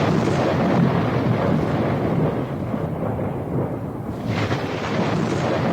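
Thunder rumbling loud and continuous, swelling again about four seconds in.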